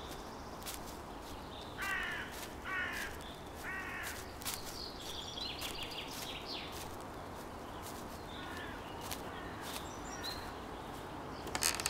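A crow cawing three times, about a second apart, over a steady outdoor background. Higher, thinner bird calls follow more faintly.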